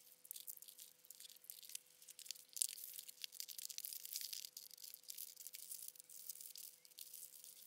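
Wrapping paper rustling and crinkling as it is unrolled and handled over a box, with one sharper crackle about two and a half seconds in and scissors snipping through the paper near the end.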